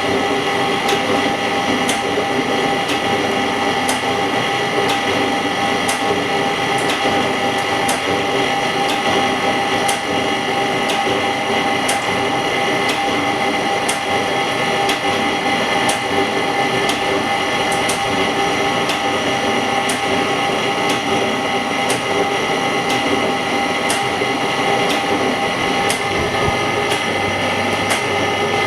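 Semi-automatic LCD separator running as its steel wire cuts the cracked front glass off an iPhone 6S LCD: a steady machine hum with several fixed tones and regular sharp ticks.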